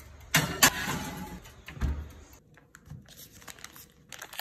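A glass baking dish clanks twice against a metal oven rack and scrapes as it slides in, followed by a dull thud. Later come scattered light taps and rustles of parchment paper.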